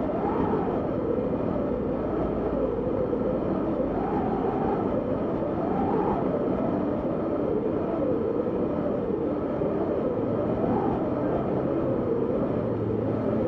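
Blizzard wind howling, a steady rush with a moaning pitch that rises and falls every few seconds.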